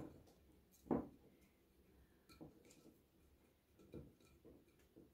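Quiet handling sounds: a few light taps and ticks as a rhinestone strip is pressed and fitted around a glass vase. The two clearest taps come at the start and about a second in, followed by fainter ones.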